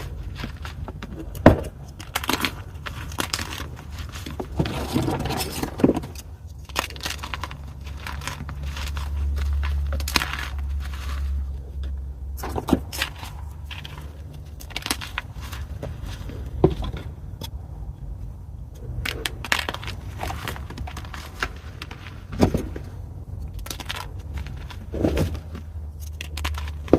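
Pieces of gym chalk (magnesium carbonate) being crushed and crumbled: a run of irregular crunches and crackles, with a sharp snap about one and a half seconds in and a low rumble from about eight to twelve seconds in.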